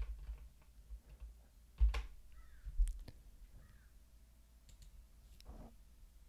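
A few scattered computer keyboard clicks, the loudest about two seconds in, over a faint low hum.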